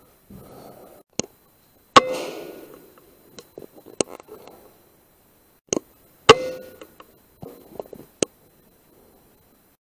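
Two sharp shots from an Air Arms S510 .177 air rifle, about four seconds apart, each followed by a short ringing decay. Lighter mechanical clicks come before, between and after the shots.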